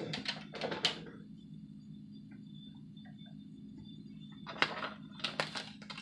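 Light clicks and taps from handling a makeup brush and eyeshadow palette, in two short clusters, at the start and again about five seconds in, over a steady low hum.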